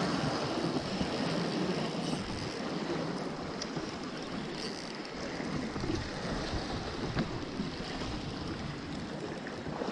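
Sea water washing steadily over shoreline rocks, with wind on the microphone and a few faint clicks.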